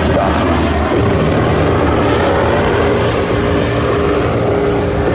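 Mil Mi-24/35 Hind attack helicopter in flight: its two turboshaft engines and five-blade main rotor give a loud, steady drone with a few held tones.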